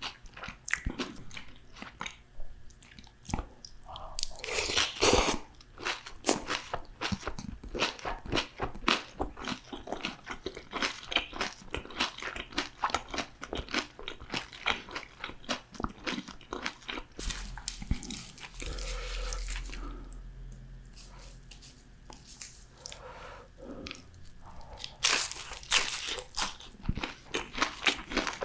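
Close-miked crunching and chewing of crisp fried food: dense small crackles with heavier crunchy bites about five seconds in and again near the end, and a softer stretch of chewing in between.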